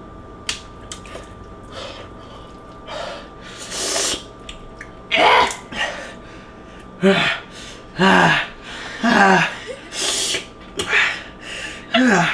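People sharply sucking in and hissing out air and letting out short 'ah' cries that fall in pitch, a quick run of them from about three seconds in: pained reactions to the burn of extremely spicy noodles.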